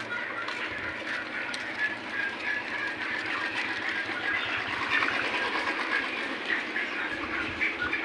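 Dense, steady chorus of peeping and cheeping from a large flock of about 5,000 young broiler chickens, many short high chirps overlapping.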